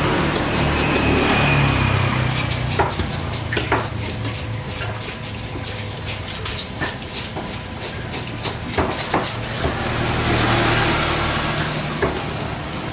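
Large knife working through a tuna loin on a wooden stump chopping block, with scattered knocks and clinks, over a low engine drone that swells at the start and again about ten seconds in.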